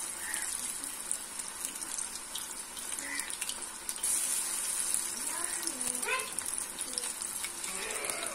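Hot oil sizzling steadily in a karahi as vegetable batter fritters (pakoras) deep-fry. About four seconds in a fresh piece of batter goes into the oil and the sizzle grows louder.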